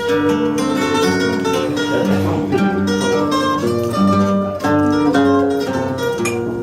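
Portuguese guitar and viola de fado (classical guitar) playing the instrumental introduction to a fado, a quick run of plucked melody notes over strummed accompaniment.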